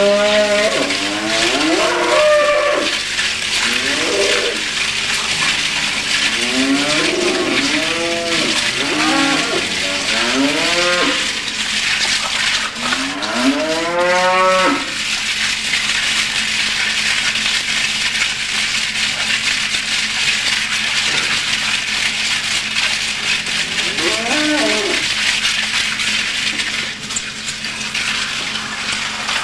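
Cattle mooing: a string of rising-and-falling calls in the first half, then one more after a long pause, over a steady hum and hiss.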